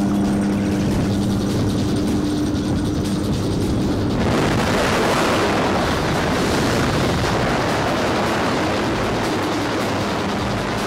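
Aircraft engine and propeller droning steadily at the open door of the jump plane. About four seconds in, this gives way to a loud, even rush of freefall wind buffeting the camera microphone as the tandem pair leaves the aircraft.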